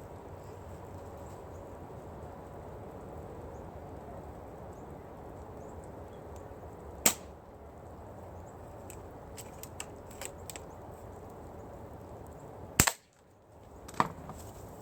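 Spring-powered GF529 airsoft sniper rifle shots: a sharp snap about seven seconds in and a second loud snap near the end, followed a second later by another smaller snap. A few faint clicks fall between them over a steady low background noise.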